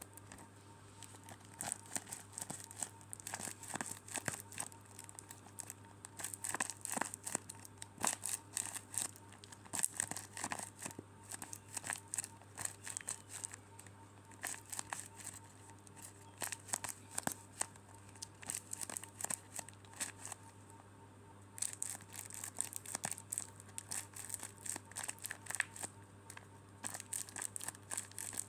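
DIY squishies being squeezed and handled: repeated crinkling and crackling in irregular bursts, over a steady low hum.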